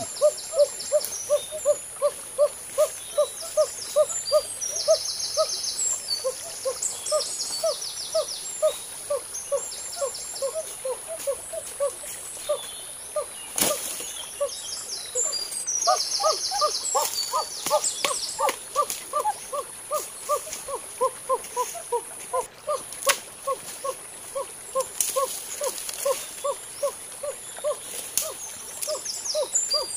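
A forest bird calls a long, steady series of short hooting notes, about two and a half a second. A high, steady insect drone and brief twittering bird calls come and go over it.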